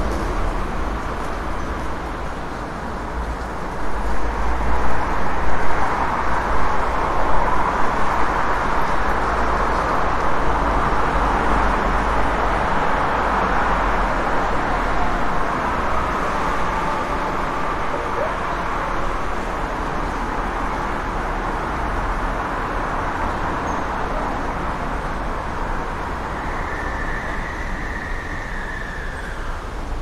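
Busy city street traffic: a steady wash of car engine and tyre noise over a deep rumble, swelling louder a few seconds in. Near the end a thin high tone sounds for a few seconds.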